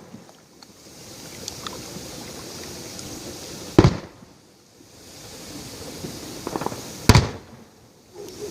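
Aerial fireworks shells bursting: two loud booms about three seconds apart, the second preceded by a quick run of smaller crackling pops.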